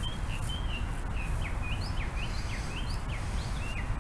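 Small birds chirping outdoors: many short, quick high notes, several a second, over a steady low background rumble.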